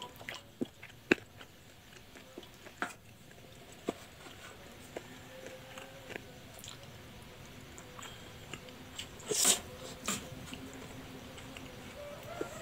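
A person chewing spicy boneless chicken feet in a saucy dish, with wet mouth sounds and several sharp clicks in the first few seconds. A louder short noisy burst comes about nine seconds in.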